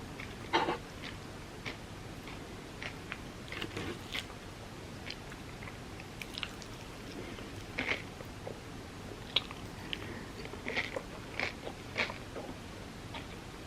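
Close-miked chewing and biting of Dubai-chocolate-filled crepes: irregular small crunches and sharp mouth clicks over a steady low hiss.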